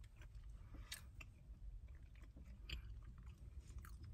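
A person chewing a bite of pepperoni pizza, faintly, with scattered soft mouth clicks.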